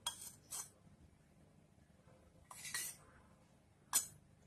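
A spoon clinking and scraping against a bowl in four short, separate bursts as spoonfuls of oil are added to the flour and semolina.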